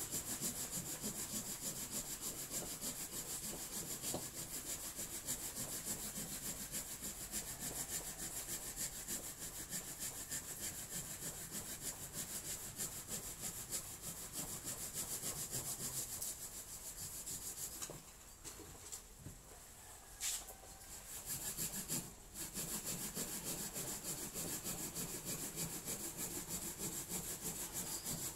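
Small hand saw cutting through a woody branch on a wooden block, in fast, even back-and-forth strokes. About two-thirds of the way through it stops for a few seconds, with a single knock, then starts again.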